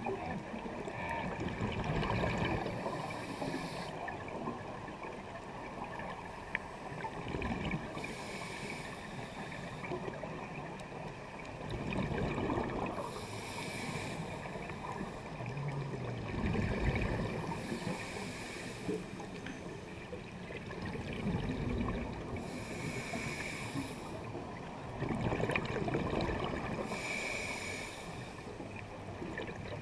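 Scuba regulator breathing underwater, heard through a camera's waterproof housing. A hiss comes with each inhalation, about every five seconds, and a low rumble of exhaled bubbles falls between them.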